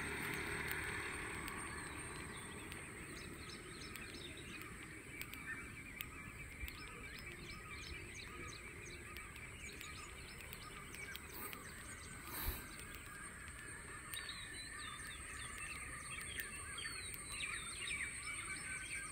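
Faint scattered bird calls, many short chirps and whistles, over quiet outdoor background noise, with one brief thump about twelve seconds in.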